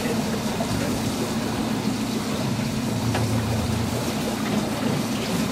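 Motorboat engine running steadily, a low, even hum, with the hiss of wind and water as the boat moves.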